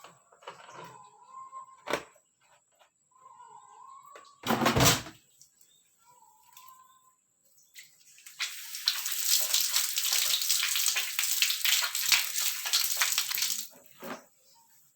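A Sharp automatic washing machine with a loud thump about four and a half seconds in, then water rushing into the tub for about five seconds before it stops. A few short warbling chirps come in the first seconds.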